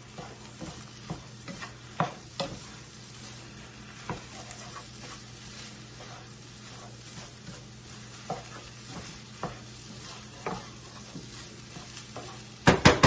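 Chicken chow mein noodles sizzling as they are stir-fried in a pan, a utensil scraping and tapping against the pan at irregular moments. A quick run of louder knocks against the pan comes near the end.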